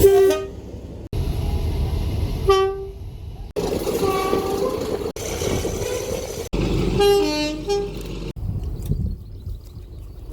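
Train horns in quick succession across several edited clips: short single horn blasts just after the start, at about two and a half seconds and at about four seconds. Near seven seconds a two-tone horn sounds, alternating between a higher and a lower note. The rumble of passing trains runs between the blasts.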